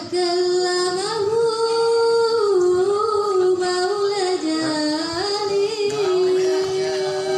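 A young woman sings solo into a handheld microphone, with no instruments. Her melody is ornamented, sliding and bending between notes, and settles into a long held note near the end.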